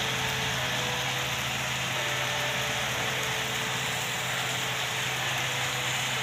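Chicken adobo with chicken livers sizzling in oil in a frying pan: a dense, steady crackle, with a steady low hum underneath.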